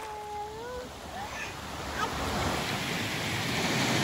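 Small waves washing and breaking on a sandy beach, growing louder. A brief whistle-like tone sounds in the first second.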